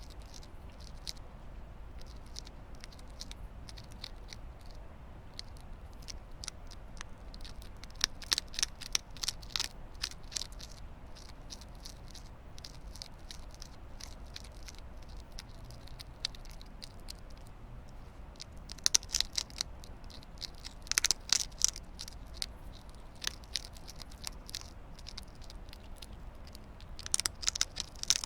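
Hedgehog chewing: small, sharp, crunchy clicks, gathered into three louder spells of a few seconds each (about a third of the way in, around two-thirds, and near the end), with scattered single clicks between them over a low steady hum.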